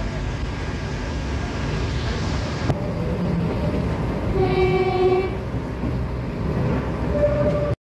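Diesel railcar running, heard from inside the passenger compartment: a steady low rumble of engine and wheels on the track. Halfway through, a steady pitched horn sounds for about a second. The sound cuts off suddenly just before the end.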